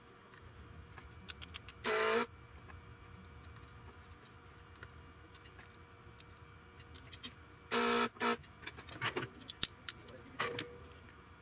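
Desoldering pump's spring-loaded plunger snapping back to suck molten solder from the pins of the inverter board: one sharp buzzy snap about two seconds in, then two more in quick succession near the eight-second mark, with light clicks from handling the tool in between.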